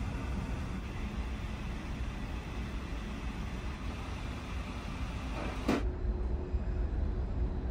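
Steady low rumble inside the car ferry Sunflower Furano while it is underway. A single sharp click comes near the end, after which a faint steady hum continues.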